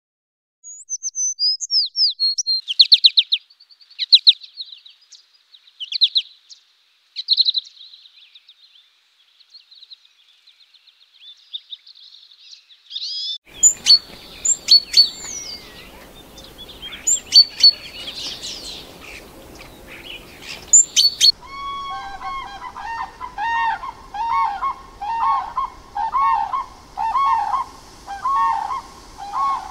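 Eurasian tree sparrow chirping in quick high runs. A great tit's sharp calls follow over faint woodland ambience from about halfway. In the last third come repeated pitched honking calls of wattled cranes, about two a second.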